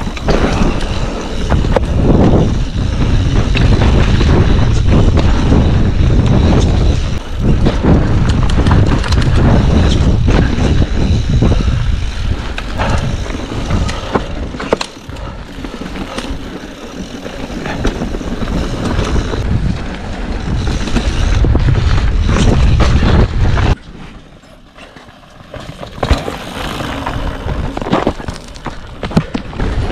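Ride noise from a Yeti mountain bike on a fast rocky descent: wind buffeting the camera microphone under the tyres crunching over dirt and rock, with frequent clatter and knocks as the bike rattles over bumps. About 24 seconds in it drops suddenly much quieter.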